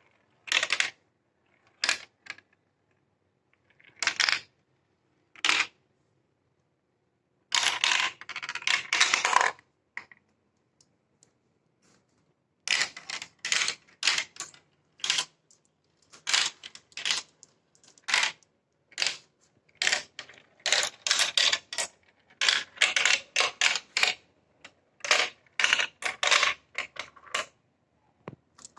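Glass marbles clattering down plastic marble-run track: bursts of quick clicks and rattles, with two short pauses in the first half, then near-continuous clicking.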